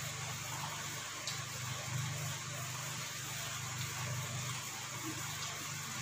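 Steady low hum with an even hiss, constant throughout, with a few faint ticks: continuous room background noise.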